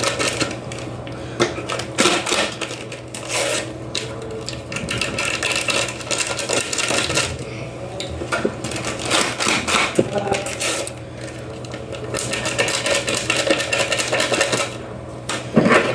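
Small paper sachets of baking powder being torn open, crinkled and tapped as the powder is shaken into a bowl of batter: irregular rustling with short clicks, over a steady low hum.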